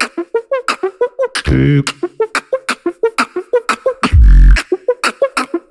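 Beatboxing: a fast, even groove of sharp clicks and hi-hat-like ticks with short pitched blips, broken twice by a loud, deep bass sound of about half a second, once shortly after the start and once past the middle.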